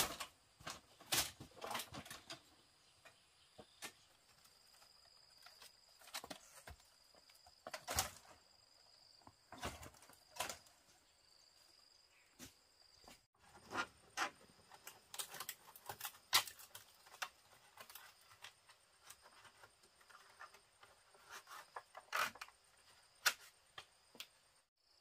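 Scattered light taps and knocks at an irregular pace, over a faint steady high-pitched insect buzz.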